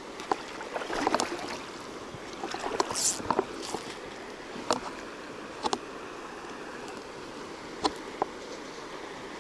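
Steady rush of a shallow river, with scattered clicks and a brief swish near the middle from fly line being handled and cast.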